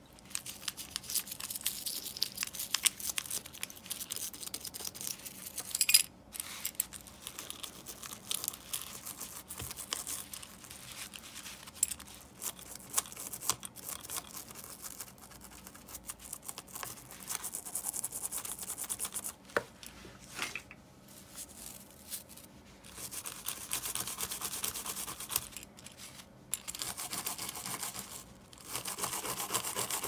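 Hand work on the small metal parts of an Abu Garcia Ambassadeur 1500C baitcasting reel during maintenance. Stretches of rubbing and scraping come with many light clicks, and there is a sharper knock about six seconds in.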